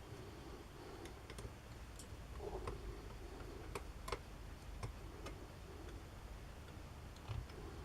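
Faint, irregular light clicks and taps, about ten in all, of small parts being handled and fitted on a workbench, with a dull knock near the end.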